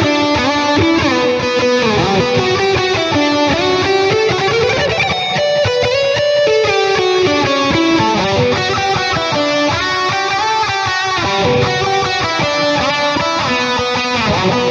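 Seven-string electric guitar, a Strandberg Boden 7 True Temperament with Fishman Fluence pickups, playing a lead riff on a distorted lead tone, with string bends and slides.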